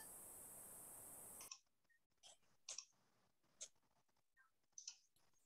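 Near silence: a faint steady hiss that cuts off suddenly about a second and a half in, then a few faint, scattered clicks.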